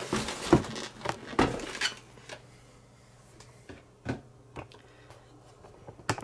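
Cardboard box and foam packaging of a diecast model being handled and opened: a cluster of knocks and rustles in the first two seconds, then a few scattered light clicks.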